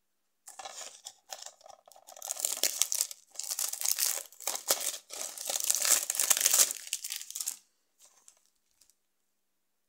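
Plastic shrink-wrap being torn and peeled off a DVD case by hand: a dense run of crackles and rips lasting about seven seconds, stopping shortly before the end.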